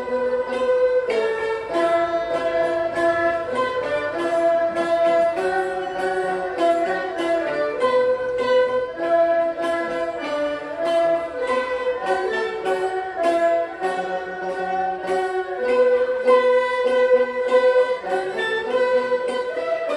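Chinese traditional instrumental ensemble playing a melody, with upright bowed fiddles (erhu-type) over many quick plucked-string notes.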